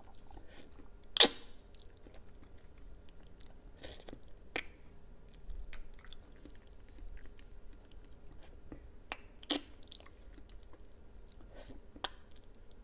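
Close-miked chewing and wet mouth smacks of someone eating a soft jelly cup with coconut jelly chunks, in scattered short clicks. One sharp, louder click comes about a second in.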